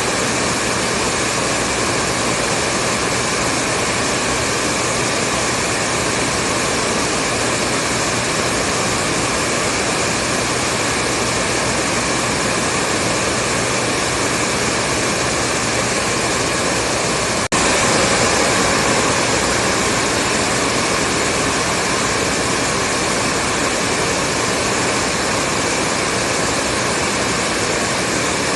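Hair dryer running steadily, a continuous blowing rush with a constant motor whine. About two-thirds of the way through it breaks off for an instant and comes back a little louder.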